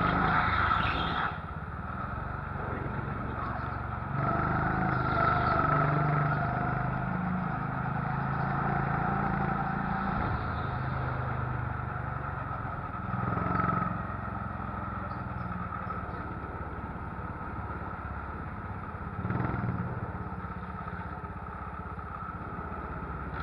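Indoor go-kart heard from on board, its motor running steadily at moderate speed. The note drops about a second in and swells with the throttle a few times.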